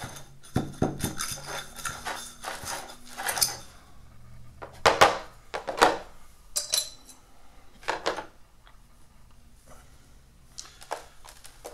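Metal tweezers scraping and poking through dry potting mix and perlite in a glazed ceramic pot, a quick run of scratchy strokes, followed by a few separate louder knocks and scrapes as the tweezers are put down and hands work the soil.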